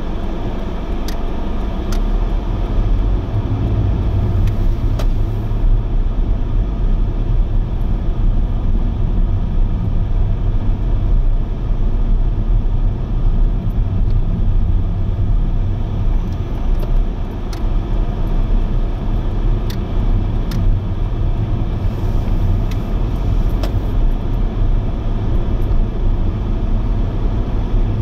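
Steady low rumble of a vehicle in motion, with a few faint clicks.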